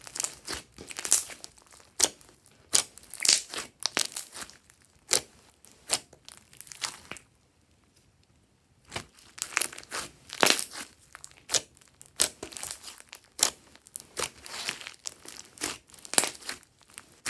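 Hands squeezing and kneading glossy slime: irregular sticky clicks, crackles and squelches, with a short pause about halfway through before the squeezing resumes.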